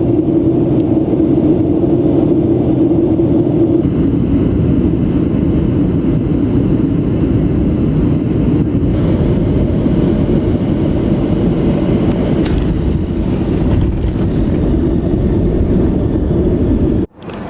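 Airliner engine noise heard inside the cabin of a Southwest Boeing 737: a loud, steady rumble, with a hum that stops about four seconds in. It cuts off abruptly near the end.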